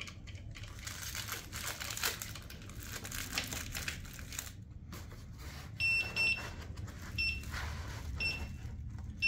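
Plastic wrapping crinkling on a Begode Mten4 electric unicycle, then several short, high beeps from the wheel itself, some in pairs, while it is still locked in transport mode.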